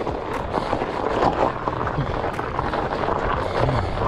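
Studded fat-bike tyres crunching over crusted, footprint-rutted snow, with irregular knocks and rattles from the bike over the bumps and wind rushing on the microphone.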